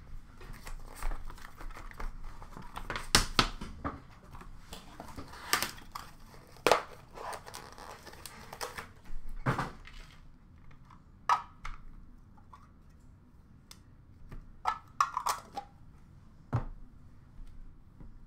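Hands tearing and crinkling the wrapping of a sealed hockey trading card box, with rustling and sharp clicks of cardboard and paper being handled. The rustling is dense for about the first half, then thins to scattered taps and rustles.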